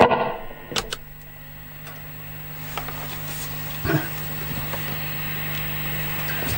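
The last electric guitar chord dies away, leaving the guitar amplifier's steady low hum. Small clicks come from the guitar being handled, with a thump about four seconds in as it is unstrapped.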